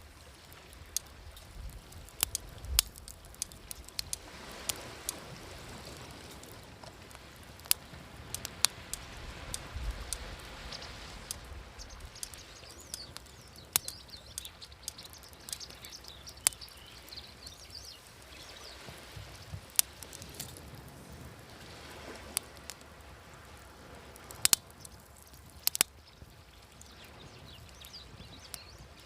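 Wood fire crackling, with sharp, irregular snaps and pops, over the wash of waves that swells and eases every several seconds.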